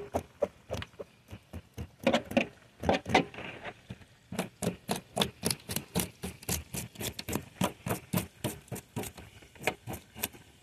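Metal spoon scraping the scales off a small black drum: short rasping strokes, scattered at first, then a quick even run of about four or five a second from about four seconds in.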